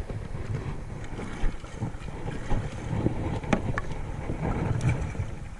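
Wind rumbling on the microphone over moving water, with a few light knocks and clicks.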